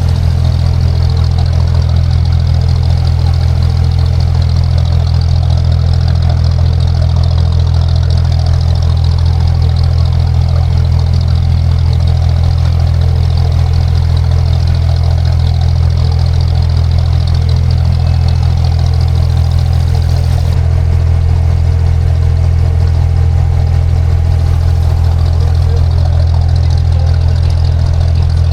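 Boat engine running steadily at constant speed, loud and low-pitched.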